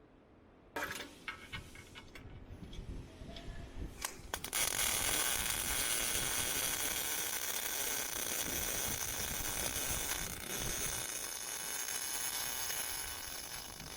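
Miller Millermatic MIG welder arc crackling on 3 mm steel plate. A few short sputtering starts come about a second in, then a steady continuous weld bead from about four and a half seconds on.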